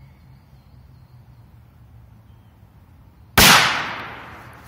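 A Korsar-3 firecracker goes off once about three and a half seconds in: a single sharp bang, very loud, with a tail that fades away over about a second.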